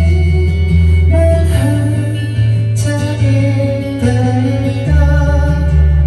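Karaoke backing track playing the song's instrumental intro: sustained bass and guitar chords, the harmony shifting about a second and a half in and again near five seconds.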